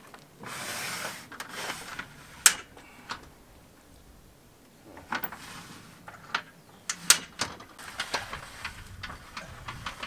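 RV roll-out awning being pulled open by hand with an awning rod: a rush of the fabric unrolling, then a run of sharp metal clicks and knocks from the awning's arms and hardware, the loudest about two and a half and seven seconds in.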